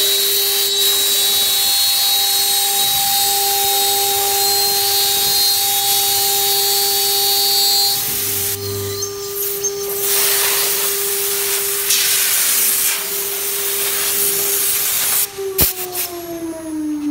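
CNC router spindle cutting MDF: a steady high whine over the hiss of the bit chewing through the board. Near the end the whine drops steadily in pitch as the spindle winds down.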